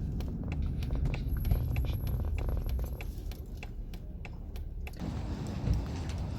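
Vehicle running, heard from inside the cabin: a steady low rumble with scattered clicks and rattles, changing character about five seconds in.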